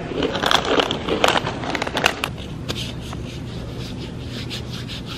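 Handling noise on the camera's microphone: rustling, scraping and a few sharp knocks in the first couple of seconds as the camera is moved about, then quieter over a low steady hum.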